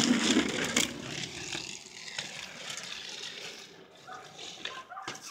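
Inline skate wheels rolling on rough asphalt: a steady gritty hiss, loudest at the start and fading over the next few seconds as the skater moves away. A few light taps near the end.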